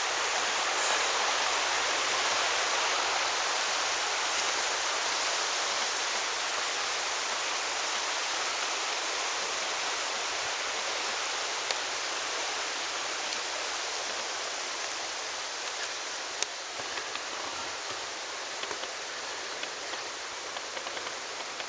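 Steady rush of flowing water, like a creek running over rocks, with a few faint sharp clicks in the second half.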